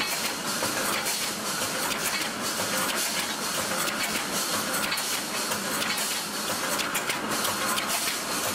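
Automatic wire mesh welding machine running: a steady dense mechanical noise, with frequent sharp clicks through it.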